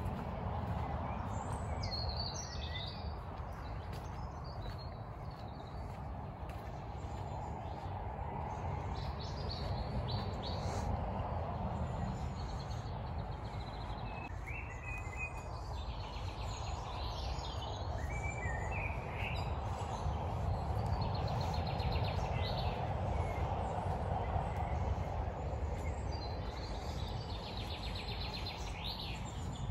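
Small woodland birds singing and calling, short chirps and trills coming on and off throughout, over a steady low background rumble.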